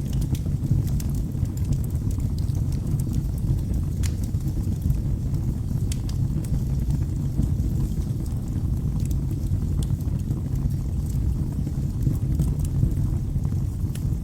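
Wood fire burning in a fireplace: a steady low rumble of flames with irregular sharp crackles and pops from the burning logs.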